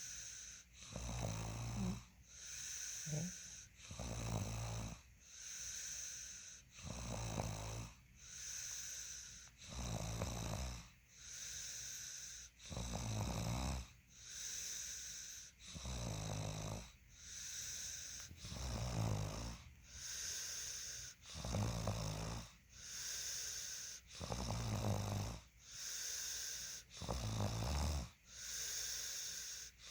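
A sleeping person snoring in a regular breathing rhythm. Each breath has a low rattling snore followed by a hissing, wheezy breath, repeating every couple of seconds.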